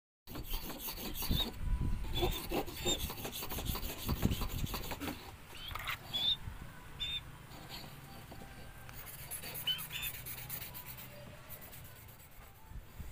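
Steel blade being sharpened by hand with a whetstone: a quick run of rasping back-and-forth strokes, heaviest in the first five seconds, then lighter and fainter.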